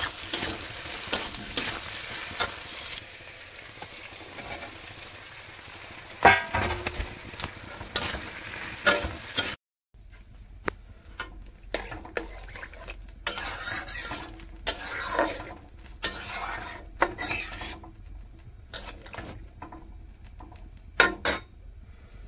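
Long steel spatula scraping and clinking against a metal kadai as fried potato cubes are stirred in sizzling oil. After a short break, the spatula clinks irregularly against the pan as soybean chunks in watery gravy are stirred.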